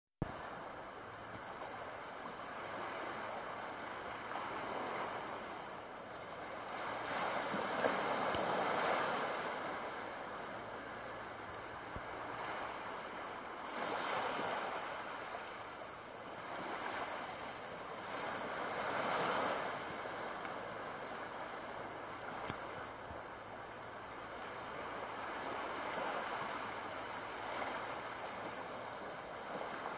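Small sea waves washing and lapping, swelling and easing every few seconds, with a single brief click about two-thirds of the way through.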